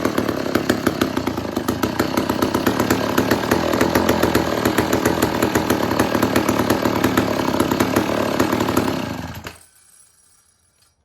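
1968 Farmcrest two-stroke chainsaw running steadily with a rapid, even firing pulse, then shut off about nine and a half seconds in, the engine dying away quickly into quiet.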